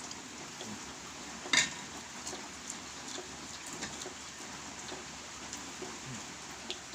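Steady hiss of rain, with one sharp clink of tableware about a second and a half in and a few faint ticks.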